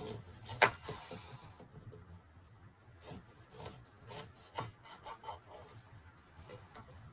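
Kitchen knife cutting through an orange on a plastic cutting board. A sharp knock of the blade on the board comes about half a second in, then a run of lighter knocks and taps as the halves are sliced.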